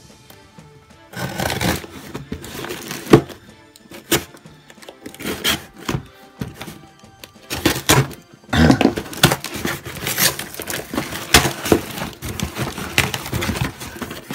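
Cardboard parcel being cut open with a utility knife and its flaps pulled apart: irregular scrapes, tape tearing and knocks, the sharpest knock about three seconds in and busier handling from about eight seconds on. Background music runs underneath.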